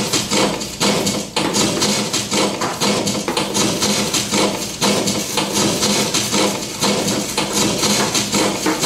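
A paper book handled close to a microphone and amplified through effects pedals: a dense, continuous run of rapid scratches, taps and rustles over a low steady tone.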